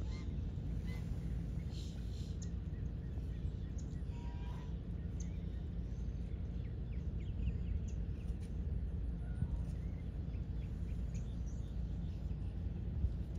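Steady low rumbling background noise with faint, scattered bird chirps over it.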